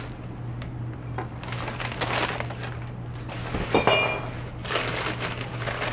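Crumpled newspaper packing rustling as glassware is handled, with scattered clicks. About four seconds in comes a sharp glass clink with a brief ring.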